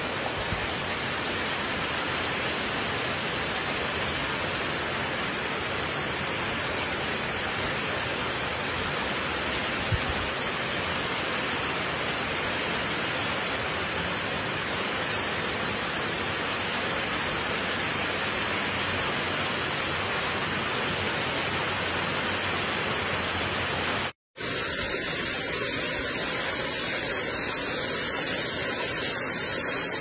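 Steady rush of a waterfall cascading over rock ledges. The sound cuts out completely for an instant about 24 seconds in, then resumes.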